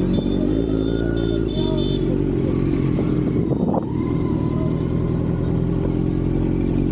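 Kawasaki Z900 inline-four engine idling steadily, with a brief dip a little past halfway.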